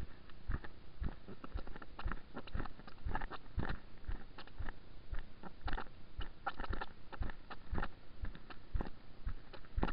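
Kayak being moved along a towpath on land: irregular knocks and crunchy clicks from the hull and bow-mounted camera jolting with each step.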